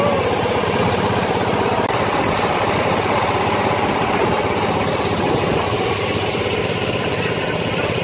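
A small boat's engine running steadily while the boat is under way.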